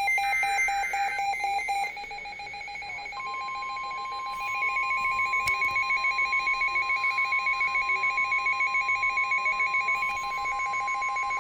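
Emergency alert tones on NOAA Weather Radio, heralding a warning. A short buzzy data squawk comes in the first second, and a fast pulsing electronic beep at about five pulses a second runs throughout. From about three seconds in a steady single-pitch alarm tone joins it, the Warning Alarm Tone that precedes a warning message.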